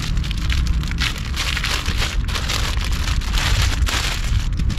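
Rustling and crinkling of the t-shirt's plastic packaging as it is handled and opened, an uneven crackly hiss over a low steady rumble.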